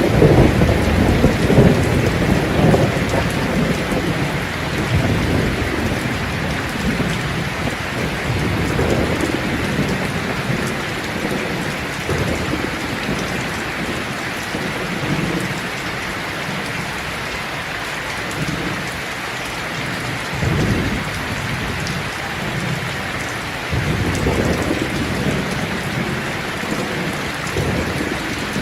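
Steady heavy rain with rolling thunder rumbling on and off: strongest in the first few seconds, and again briefly about twenty seconds in and for a few seconds near the end.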